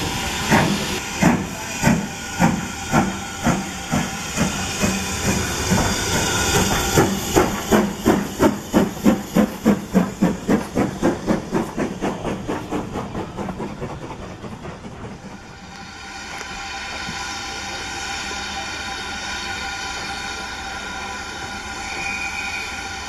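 BR Standard Class 4MT 2-6-0 steam locomotive 76079 pulling away. Its exhaust beats quicken from under two a second to a rapid chuff and die away about two-thirds of the way through as it passes. A steady hiss of steam follows.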